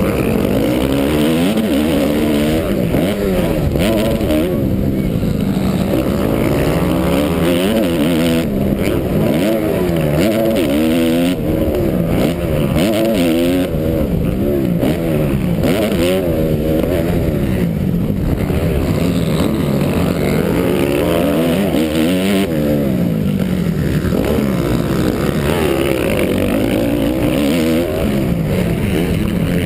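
Motocross bike engine heard from on board, revving hard, its pitch climbing and dropping over and over as the throttle opens and closes and the rider shifts through the gears.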